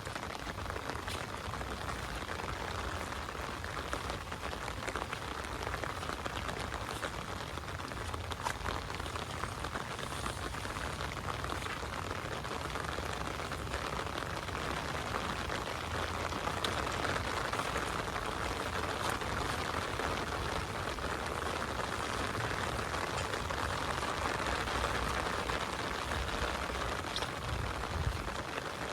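Heavy rain falling steadily: a constant hiss with many single drop hits clicking through it.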